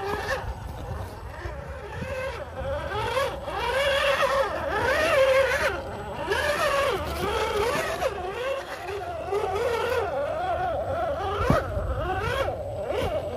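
RGT EX86100 V2 RC rock crawler's electric motor and drivetrain whining, the pitch rising and falling over and over with the throttle as it crawls over rocks. A few sharp knocks of the tyres and chassis on stone, the loudest one near the end.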